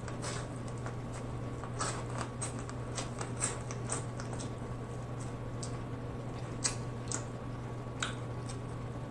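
Close-miked mouth sounds of eating corn on the cob: scattered wet smacks and clicks of biting and chewing, over a steady low hum.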